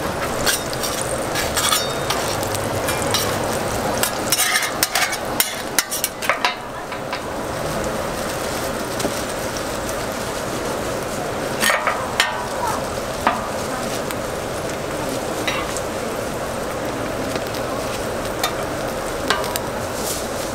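Burger patties sizzling on a flat-top griddle, a steady hiss, with scattered sharp clicks and taps, clustered about four to six seconds in and again around twelve seconds.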